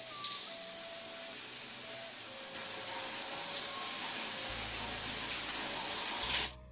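Shower water running from a wall-mounted hand shower, a steady spray hiss that cuts off suddenly near the end.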